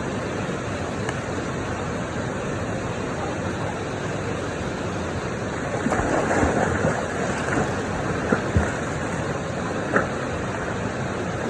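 River water rushing steadily over rocks. From about halfway through there is louder, irregular splashing, with a few short sharp knocks near the end.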